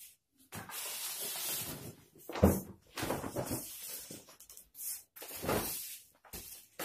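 Rustling and crackling of a printed plastic banner being pulled down off a wall and handled, with a sharp thump about two and a half seconds in.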